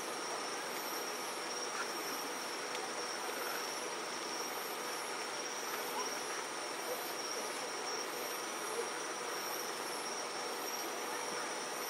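Steady night insect song: a continuous high trill with a faint faster pulsing above it, over a soft hiss. A few faint thumps of distant firework bursts come through it.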